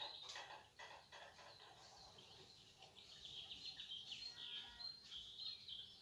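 Faint birdsong: many small birds giving a steady run of high chirps and short trills.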